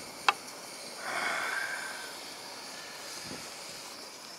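A sharp click, then about a second in a breathy exhale lasting about a second, over a faint steady outdoor hiss.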